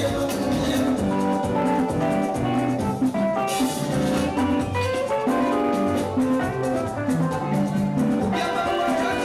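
Upbeat band music with a steady drum beat and held melodic notes.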